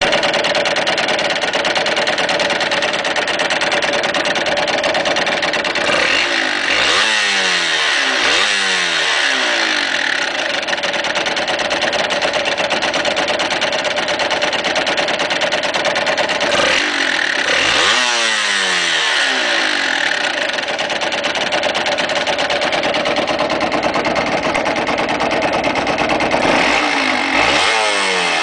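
Yamaha TDR two-stroke motorcycle engine idling, blipped a couple of times in quick succession about six seconds in, again around seventeen seconds, and again near the end, the revs rising and dropping straight back to idle. The owner says this 6,700 km engine is not running right and makes a strange noise.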